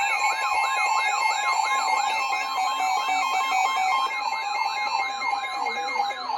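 Several weather alert radios sounding their alarms at once: a fast, repeating siren-like wail, about three to four sweeps a second, layered over steady alert tones and a beeping tone.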